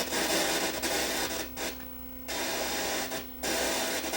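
Static hiss with a steady hum from the Sony EVS7000 Hi8 deck's faulty sub-channel audio. It drops out twice as a wet finger touches the audio circuit, for about half a second near the middle and briefly again later. The noise comes from a bad capacitor in the audio circuit.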